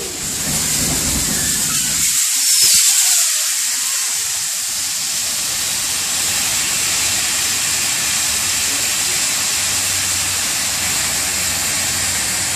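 Aerosol fire suppression generator discharging: a loud, steady hiss as its solid compound burns and jets suppressant aerosol over a flammable-liquid (Class B) fire. The hiss is loudest about two to three seconds in, then holds even while the compound is used up.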